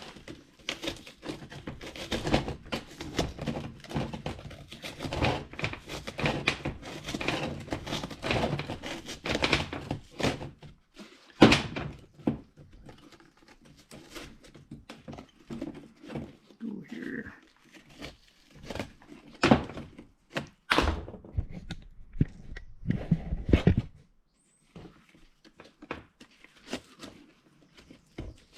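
Metal knocking and scraping as a cut-open oil filter's perforated steel center tube is worked apart with hand tools: a dense run of irregular knocks and rattles for about the first ten seconds, then scattered single sharp knocks with short gaps.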